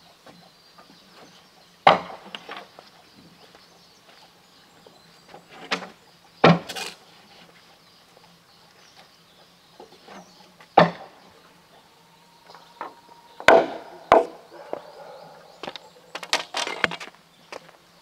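Machete chopping at green bamboo poles: single sharp chops every few seconds, with a run of lighter knocks near the end.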